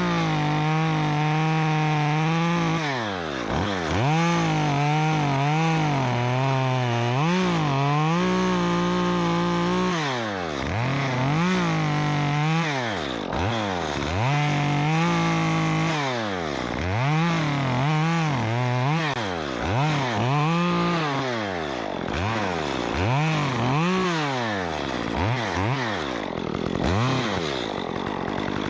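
Stihl MS 194T top-handle two-stroke chainsaw with a 1/4-inch Ripsaw bar and chain, run at full throttle and let back down over and over as it makes cuts, its pitch rising and falling many times.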